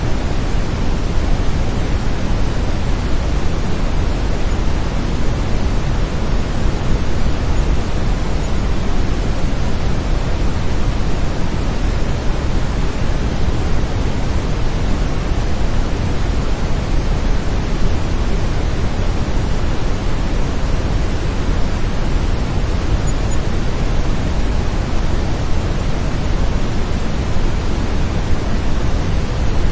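Steady brown noise: an even, deep rushing hiss, heaviest in the low end, with no change in level or character.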